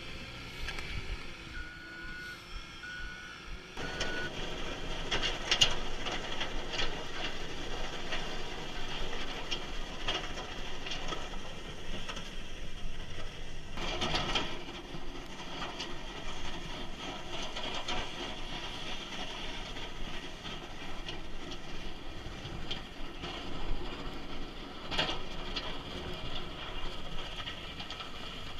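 Snowplough machinery working a snowy path: three short reversing-alarm beeps about two seconds in, then a steady, louder run of vehicle noise from about four seconds, with a brief louder surge about halfway through.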